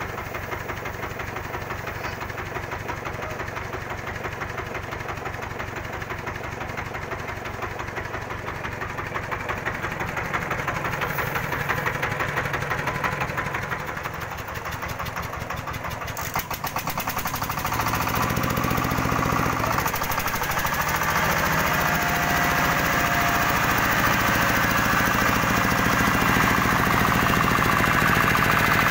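The engine of a mobile rice huller running with a steady, rapid knocking beat, driving the milling machine by belt. About halfway through the sound grows louder and harsher and stays so.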